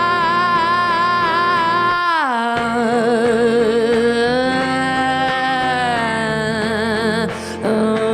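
Music: a long wordless sung note with vibrato that slides down in pitch about two seconds in, then further held, wavering notes, in a live singer-songwriter performance with instrumental backing.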